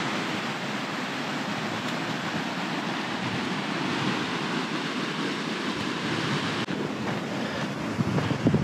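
Steady rushing noise, with gusts of wind buffeting the microphone about eight seconds in.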